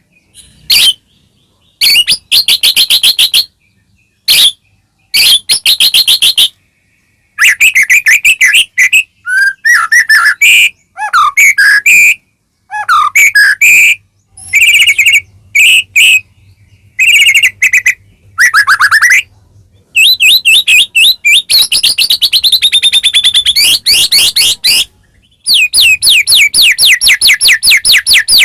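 White-rumped shama singing loudly in varied phrases: fast runs of repeated chipping notes and whistled slurs that swoop up and down, broken by short pauses.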